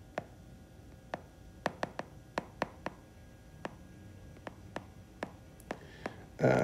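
Stylus tapping on a tablet's screen during handwriting: about a dozen short, sharp clicks at irregular intervals.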